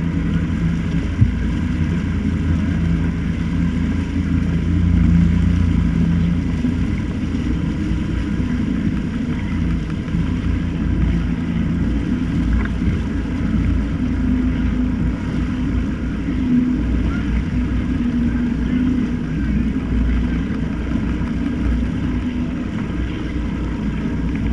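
Motorboat engine running steadily at speed, its pitch wavering a little over a constant low rush of wind and water. A single sharp click about a second in.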